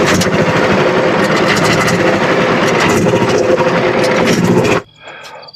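Frontier OS27 bandsaw sawmill running loudly as it cuts, its engine and blade noise steady, then cutting off sharply near the end.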